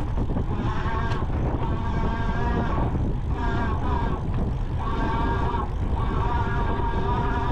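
Rear hub motor of a fat-tire e-bike whining in several close tones under power, breaking off briefly every second or so as the power comes off and back on. Under it is a steady low rumble of the fat knobby tyres on the dirt trail and wind on the rack-mounted camera.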